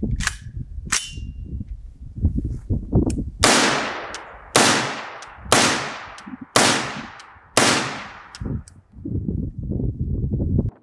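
Five rifle shots fired about a second apart, each with a long fading ring afterwards, preceded by a couple of sharp clicks; a low rumble of wind on the microphone underneath.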